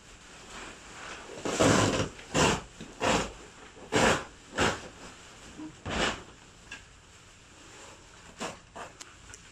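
A cut section of carpet being pulled up and folded back off a concrete floor: a series of short scraping, rustling rasps, about half a dozen close together in the first six seconds, then a few fainter ones.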